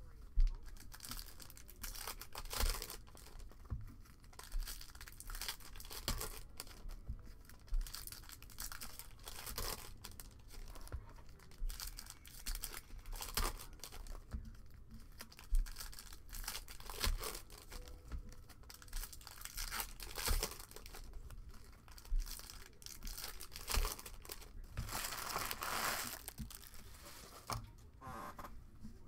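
Foil wrappers of 2021 Bowman baseball card packs being torn open and crinkled by hand, an irregular crackling and rustling, a little louder near the end.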